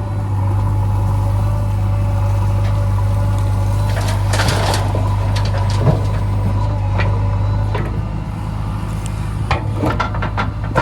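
Diesel engine of a JCB 3DX backhoe loader running steadily while loading mud, with a burst of scraping and clanking about four seconds in and several sharp metallic knocks near the end.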